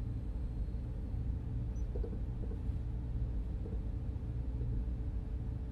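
Steady low hum and rumble: a continuous background ambience drone.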